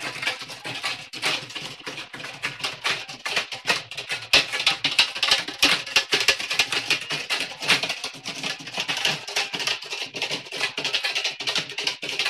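Loud music with fast, dense rattling percussion.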